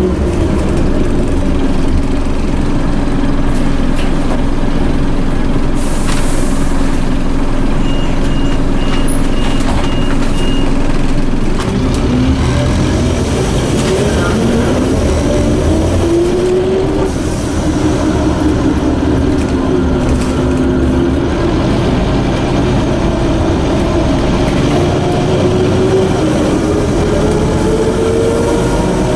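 Inside a Scania OmniCity bus with its Scania DC9 engine and ZF automatic gearbox running, and a whining tone from its broken differential that rises in pitch as the bus gathers speed, twice. An air hiss comes about six seconds in, followed by a short run of beeps.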